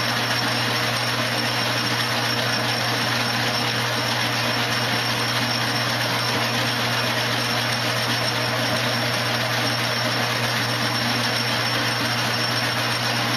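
1938 South Bend lathe running with a steady hum, its chuck turning while a boring bar takes a very light cut through an aluminium block.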